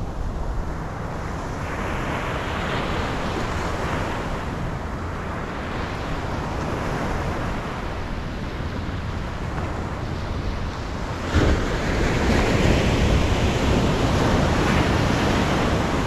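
Ocean surf breaking and washing up over the sand, swelling louder twice, with wind buffeting the microphone. A brief knock sounds about eleven seconds in.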